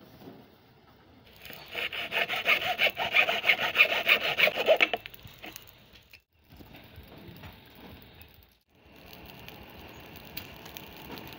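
Hacksaw blade sawing through the plastic case of a lead-acid battery in rapid back-and-forth strokes for about three and a half seconds, then stopping. A faint steady hiss fills the last few seconds.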